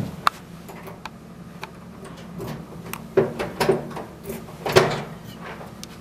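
A key worked in a door lock: keys jingling and a string of metal clicks, the loudest just under five seconds in as the lock turns and the door opens. A steady low hum runs underneath.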